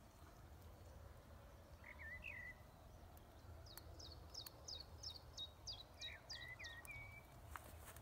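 Faint small-bird calls over a low outdoor rumble. A couple of short chirps come about two seconds in, then a run of about ten quick, high, falling notes at roughly three a second, with more chirps near the end.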